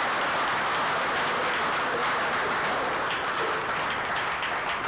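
Audience applauding: many people clapping steadily, beginning to die down near the end.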